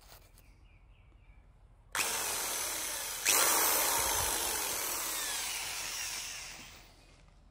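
Corded Metabo electric drill running with its bit in the air: it starts suddenly about two seconds in, jumps up a step a second later, then gradually winds down and stops near the end.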